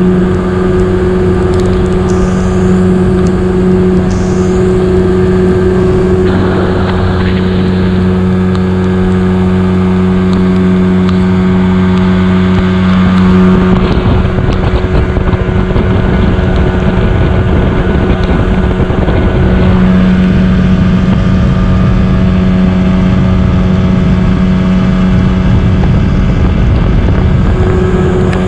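Motorboat's outboard motor running at a steady speed, a constant loud hum. About halfway through, for several seconds, its tone blurs into a rougher low rumble, then settles back to the steady hum.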